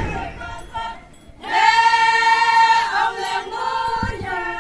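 Group of Konyak Naga women singing a festival dance chant together in high voices: a long held note from about a second and a half in to three seconds, then shorter phrases. A brief dull thump near the end.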